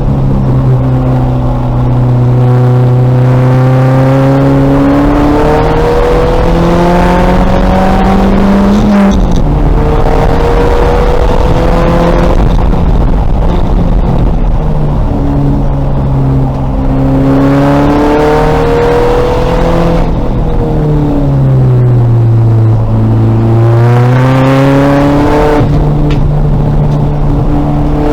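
2000 VW Golf race car's engine under load, its pitch climbing through the revs with a sudden drop at a gear change about nine seconds in. It climbs again, then falls away into a low dip for a few seconds before it picks up and rises once more.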